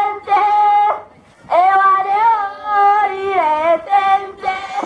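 Singing in a high voice, long held notes that slide from pitch to pitch, with a short break just after a second in.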